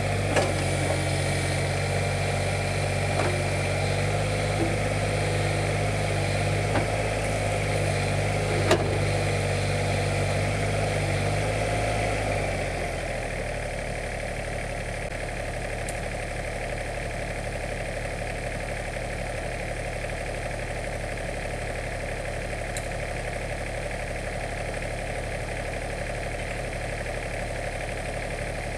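Diesel excavator engine running, the pitch and loudness dropping back to a steady idle about twelve seconds in. A few sharp clanks sound in the first nine seconds.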